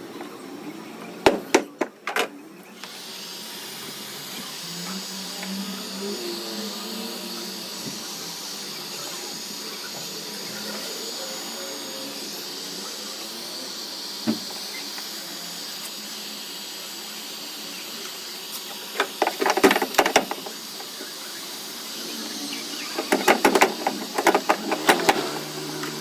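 A steady hiss, with clusters of quick, sharp taps about a second in and twice more in the second half.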